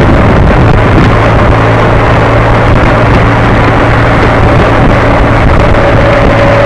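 Motorcycle engine running steadily at cruising speed, heavily mixed with wind rushing over the onboard camera's microphone.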